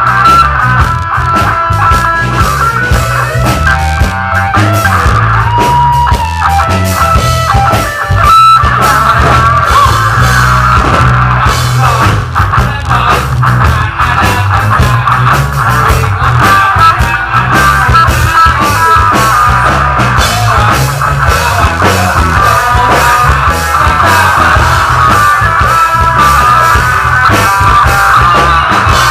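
Live rock band playing loudly: electric guitar lines over bass and a drum kit, with one sharp drum hit about eight seconds in.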